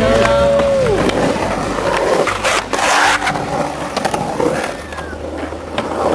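Skateboard wheels rolling and carving across a concrete bowl, with sharp clacks of the board about two and a half to three seconds in. A short held voice call sounds in the first second.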